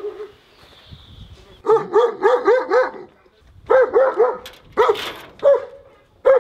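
A dog barking: a quick run of about five barks a little under two seconds in, then three more, then a few single barks spaced further apart.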